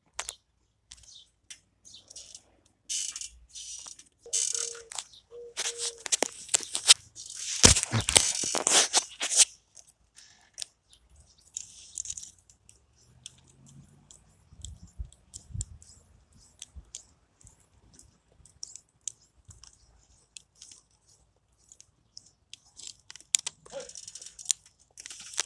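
LEGO Technic plastic pieces clicking, snapping and rattling as a model is pulled apart by hand. The sound is busiest and loudest in the first ten seconds, then thins to scattered clicks.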